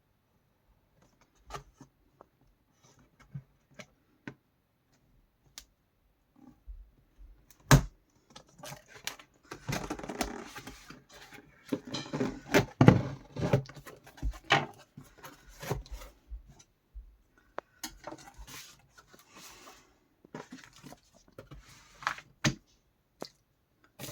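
Packaging being handled while a kettle is unboxed: scattered clicks and knocks, then irregular stretches of rustling and scraping, with a sharp knock about eight seconds in and another around thirteen seconds.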